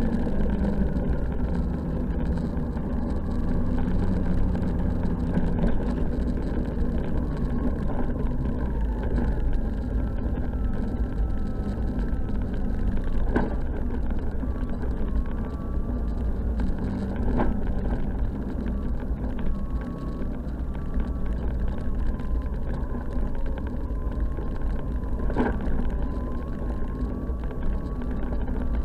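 Snowmobile engine and track running steadily at riding speed, heard from on board the machine. A few brief knocks come partway through.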